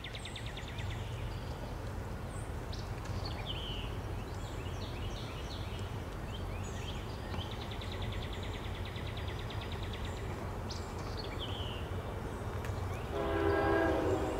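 Distant approaching CSX freight train: a steady low rumble, then its horn sounding once for about a second near the end. Birds chirp and trill over it.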